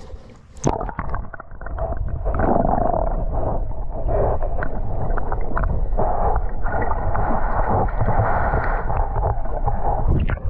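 Water heard through a camera held underwater: a splash as it goes under, about half a second in, then a steady, loud, muffled rush of water with the high end cut away.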